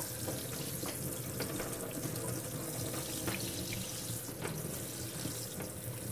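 Kitchen sink sprayer hissing steadily as its spray hits a cast-iron barber chair part, rinsing off naval jelly rust remover; a few faint ticks come through the spray.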